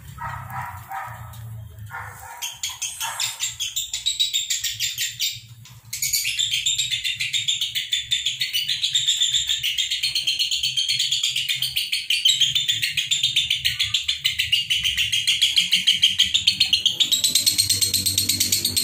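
Caged lovebirds calling in a long, unbroken run of rapid, high, shrill chirps with no pause between them. This is the nonstop 'konslet' call prized by lovebird keepers. The run starts about two seconds in, becomes continuous a few seconds later and grows louder near the end.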